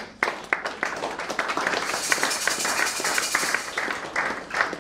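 A gathering clapping and applauding, with many quick, uneven claps that are densest in the middle, where a high hiss sits over them for about a second and a half.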